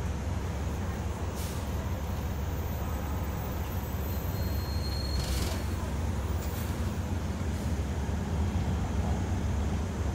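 City bus in motion, heard from inside the cabin: a steady low engine and road rumble, with two short air hisses, one about a second and a half in and one about five seconds in.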